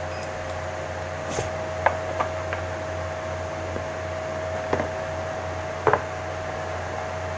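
A few light knocks and clicks of small reagent vials and bottles being picked up and set down on a lab bench, the loudest a quick double knock near the end. Under them runs the steady hum of a running fan.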